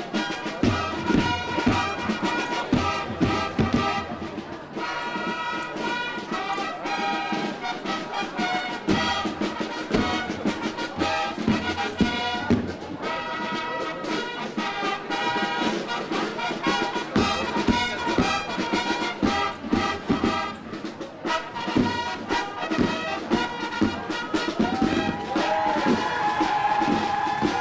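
Fanfare corps playing a march outdoors: brass fanfares sounding sustained chords over a regular beat of marching drums.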